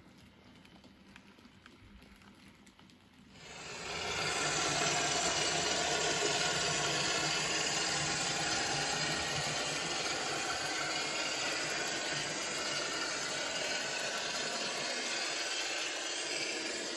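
Sound decoder of a Piko N-scale class 221 diesel locomotive model playing its diesel engine sound, which comes in about three and a half seconds in and then runs steadily.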